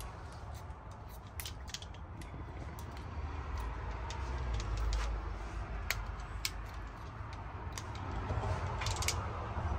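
Scattered sharp metallic clicks and clinks, at most one or two a second, from tools and small engine parts being handled, over a low rumble that swells slightly about halfway through.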